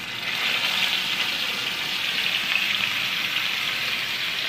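Masala-coated fish pieces frying in hot oil in a steel pan: a steady, even sizzle.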